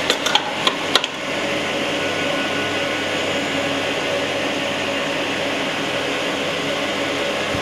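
A few sharp metal clicks in the first second, then the AMC 1500H crankshaft grinder runs with a steady, even hum, turning the 305 Chevrolet crankshaft while its runout is checked with a dial indicator.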